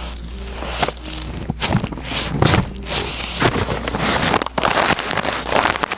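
Irregular rustling and bumping noises: loud bursts of noise at uneven intervals, with a few sharp clicks among them.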